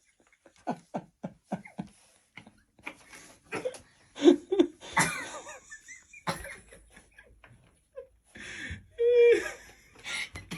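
Laughter in short breathy bursts, with giggles and wheezing.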